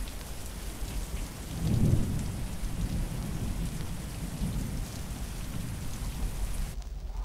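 Steady rain falling, with a low roll of thunder that swells about two seconds in and rumbles on beneath it; the rain cuts off abruptly near the end.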